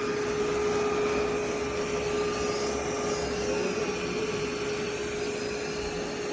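Yeedi M12 PRO+ robot vacuum running: a steady whirring noise with a constant hum.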